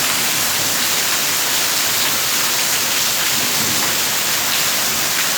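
Heavy downpour of rain, a dense, steady hiss of rain falling without letup.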